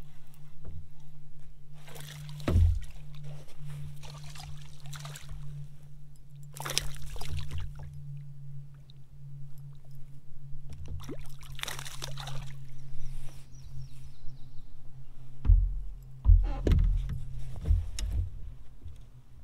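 A hooked fish splashing at the water's surface beside a kayak in several short bursts, with low thumps against the kayak near the end as it jumps and throws the hook at the boat.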